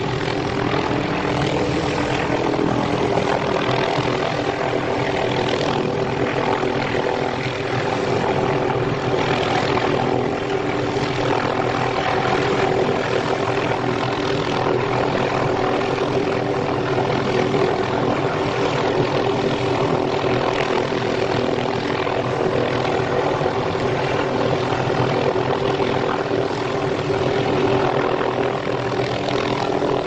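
Helicopter hovering close by, its rotor and engine making a steady, unbroken drone.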